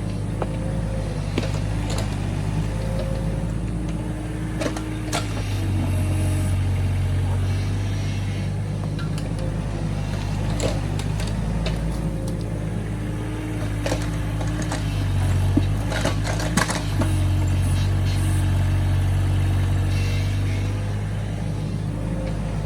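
Excavator working: its diesel engine runs steadily under load, with a faint whine that rises and falls and scattered clanks and knocks as it digs soil.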